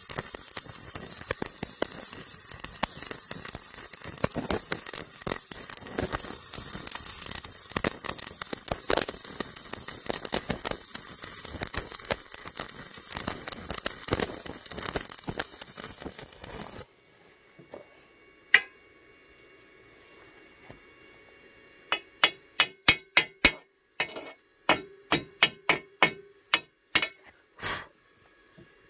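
Stick (MMA) welding arc from a Paton ECO 200 inverter crackling steadily as a rod electrode lays a bead on steel flat bar, cutting off suddenly about 17 seconds in. Later a single sharp tap, then about a dozen quick, ringing metal-on-metal taps in two runs near the end, knocking slag off the fresh weld.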